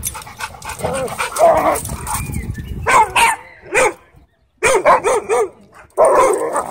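Husky-type dogs barking and yipping while they play-fight, short pitched barks in quick runs, including three in a row about five seconds in, with a brief lull just before.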